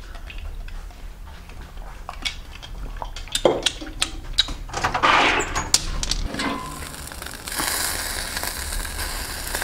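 Scattered clinks, knocks and handling noises, as of a drinking glass being handled. About three-quarters of the way through, the steady sizzle of chicken pieces cooking over a charcoal kettle grill sets in.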